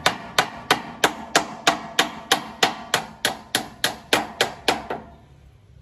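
Hand hammer blows struck in a quick, even rhythm, about three a second, each a sharp knock with a brief ring, stopping about five seconds in.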